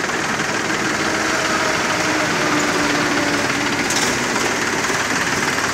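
Mahindra 265 DI tractor's three-cylinder diesel engine running steadily with a diesel knock.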